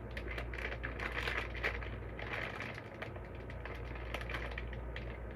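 Handling noises: irregular soft rustling and small clicks over a low steady hum.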